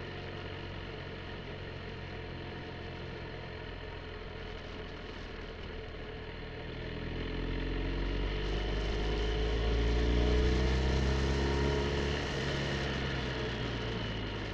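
BMW R 1250 GS Adventure's boxer-twin engine running while riding at a steady pace, then accelerating: its pitch climbs and it grows louder from about halfway through, easing off a little near the end.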